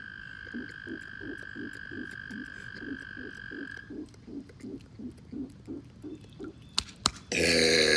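A man lets out a loud, long, pitched burp starting near the end. Before it, low pulses repeat about three times a second, and a steady high tone stops about halfway through. Two sharp clicks come just before the burp.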